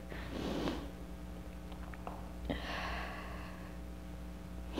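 A woman's breathing close on a lavalier microphone during a pause in dramatic speech: a breath about half a second in and a longer, sniff-like breath about halfway through. A steady low hum runs underneath.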